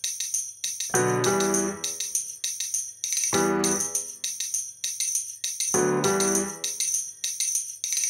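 Background music: a steady jingling percussion beat with a decaying keyboard chord struck about every two and a half seconds.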